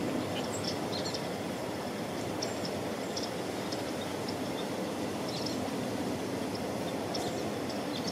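Steady low outdoor rumble, with faint short high chirps scattered through it.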